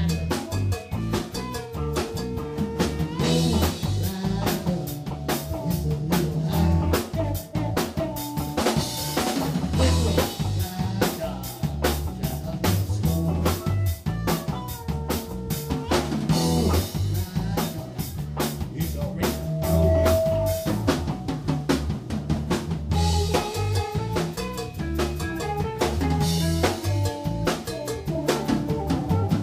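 Live band playing, with the drum kit out front: steady snare and bass-drum hits under a heavy bass line and electric guitar.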